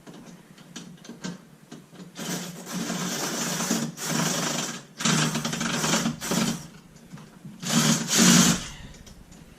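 Cordless impact driver running in four bursts, driving a bolt into the hinge; the last burst is the loudest.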